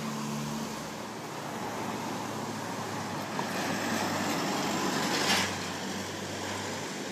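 Road traffic going by: a light flatbed truck passes, its noise building to a brief loud rush about five seconds in and then fading.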